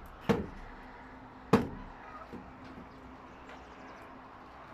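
Two sharp knocks on timber formwork, about a second and a quarter apart, as of hammer blows on wood.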